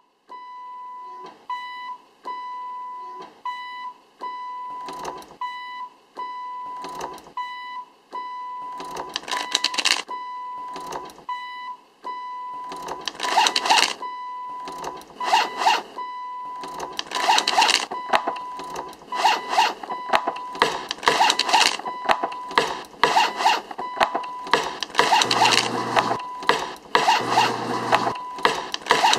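Music: a high electronic beep repeating in a quick even pattern, over percussion that grows denser and louder, with a low pulsing bass note joining near the end.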